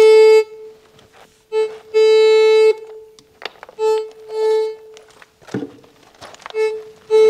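Handheld metal detector sounding its buzzy alarm tone in uneven bursts, short blips and held tones of up to about a second, as it is pressed over metal under the rubble; by the users' reckoning, the stronger the tone, the shallower the metal. A couple of sharp knocks come between the tones.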